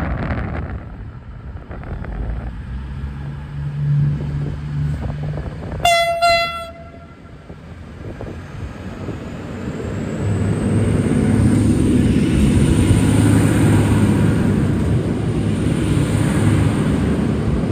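V/Line VLocity diesel railcar train: a short single-tone horn toot about six seconds in, then its diesel engines building up with a high whine rising as the train pulls away.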